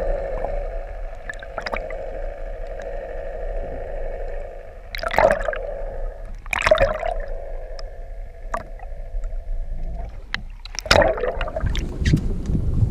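Muffled underwater sound through a camera's waterproof housing: gurgling water over a steady hum, broken by three loud splashing bursts. Near the end it changes to wind rumble on the microphone.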